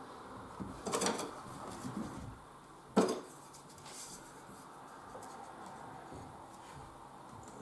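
Thin wooden strips knocking and clattering against a wooden birdhouse as they are fitted by hand along its roof edge: a cluster of light knocks about a second in, one sharp loud knock about three seconds in, and a lighter knock a second later.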